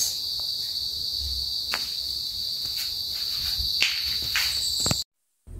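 A steady high-pitched insect trill with a few sharp clicks over it; it cuts off abruptly near the end.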